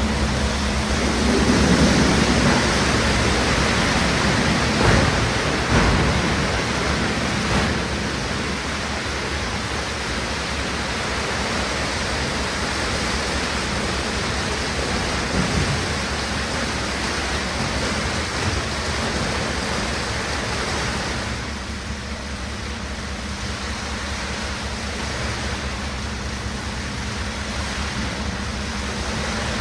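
Wet loose garbage pouring in a steady stream off a tipped truck dump body into a transfer-station pit: a continuous rushing hiss over the low, steady run of the truck's engine. A few knocks sound in the first several seconds and once near the middle, and the rush eases slightly after about 21 seconds.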